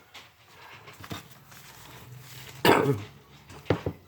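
A person coughing: one loud cough a little past halfway, then two short coughs about a second later.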